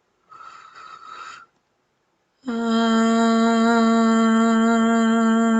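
A woman's voice toning: after a brief soft sound about half a second in, a single note begins about 2.5 s in and is held loud and steady. This is channeled healing toning meant to release guilt.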